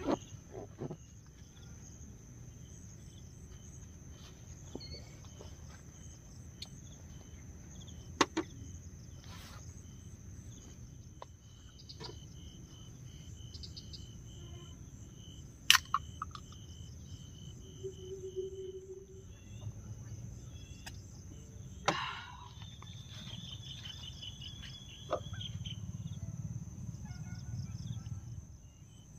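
Insects trilling in one steady, unbroken high tone, with a second insect chirping in quick pulses at a lower pitch. A few sharp knocks or snaps stand out over it, three of them louder than the rest.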